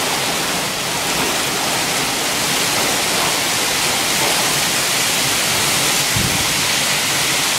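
Torrential rain from a violent desert thunderstorm, a loud steady rush with no letup. A brief low thump about six seconds in.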